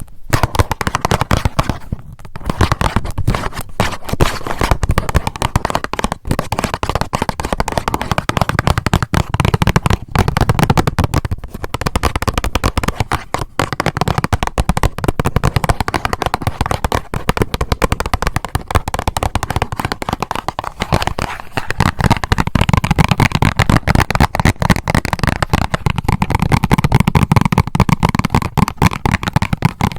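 Fingernails tapping and scratching rapidly on a band-aid box, a dense run of crackly clicks with a few brief pauses.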